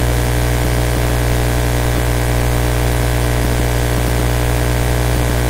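Steady electrical mains hum with a buzzy stack of overtones and an even hiss underneath, unchanging throughout.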